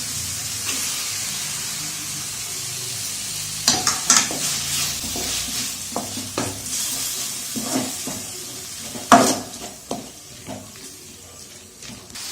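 Boiled lamb intestine pieces sizzling in hot oil in a pan while being stirred, with a metal spoon knocking and scraping against the pan several times. The sizzle dies down near the end.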